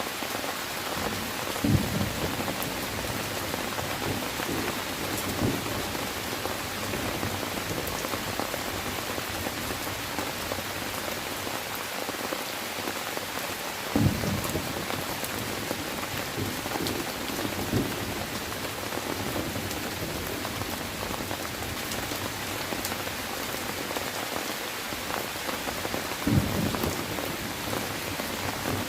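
Steady, dense rainfall hissing and pattering on surfaces, with three short low thumps spread through it, about 2, 14 and 26 seconds in.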